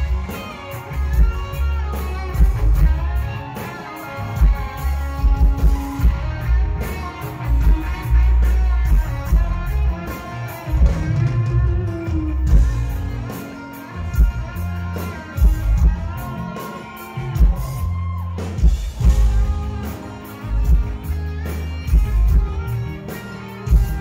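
Rock band music: electric guitar strumming over a heavy bass line and a steady drum beat.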